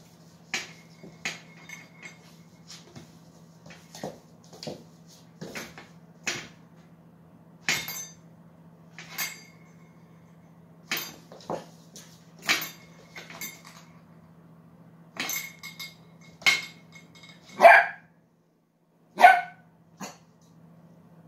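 A puppy's paws knock and scrape again and again at the bottom drawer of a metal kitchen stove as it digs for a toy stuck underneath. Near the end it barks twice, short and sharp.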